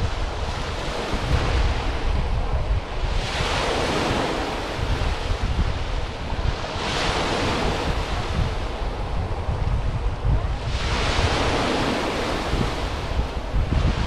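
Sea waves breaking and washing up a sandy beach, with three hissing surges a few seconds apart, over a steady low rumble of wind on the microphone.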